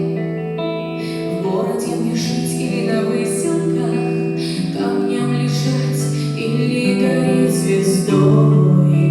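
A woman singing a slow song with long held notes over a guitar accompaniment.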